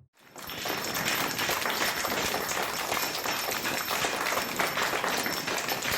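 Crowd applause: many hands clapping steadily, starting almost as soon as the music stops.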